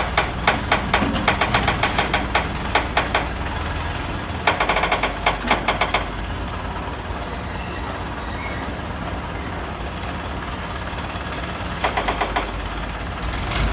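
Heavy machinery running with a steady low hum, broken by three spells of rapid, rhythmic knocking at several knocks a second: one at the start, one at about four and a half seconds, and one near the end.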